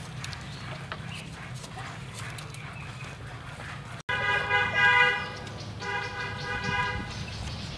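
A horn sounds twice, two steady honks about a second long each, the first about four seconds in and the second near seven seconds. Before them, light taps of bamboo slats being handled over a low hum.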